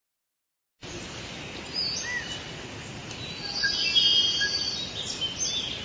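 Forest ambience sound effect: a steady hiss with scattered bird chirps and whistles, starting about a second in.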